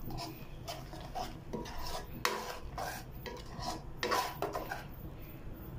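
A metal spoon scraping and stirring around a pan of thick sauce in irregular strokes, the loudest about two seconds and four seconds in.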